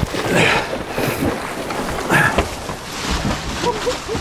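Swordfish thrashing at the surface beside a small boat, splashing water in irregular surges, with wind on the microphone.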